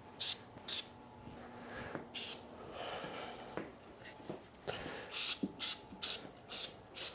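Aerosol lubricant can giving short hissing squirts onto the planer's head guide columns and bearings. There are a few separate squirts, then a quick run of about six close together near the end.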